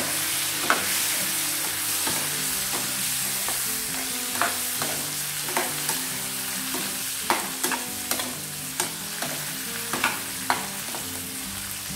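Tomato pieces sizzling steadily in hot oil and butter in a metal frying pan, stirred with a metal spoon that clinks against the pan now and then.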